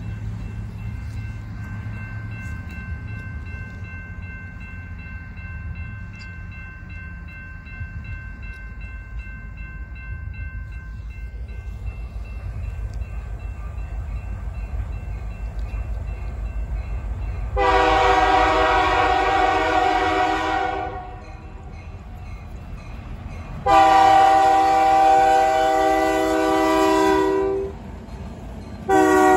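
Diesel freight locomotive approaching, its engine rumble growing louder, then sounding its multi-chime air horn in the grade-crossing pattern: two long blasts, then a short blast starting near the end.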